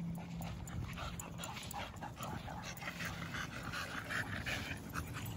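Dog panting in short, repeated breaths.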